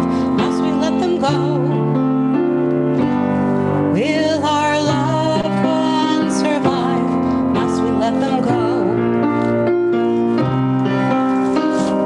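A woman singing a slow song with vibrato, accompanied by piano chords held and changed about once a second.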